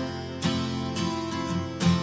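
Background instrumental music, with two strong strummed chords about a second and a half apart over held notes.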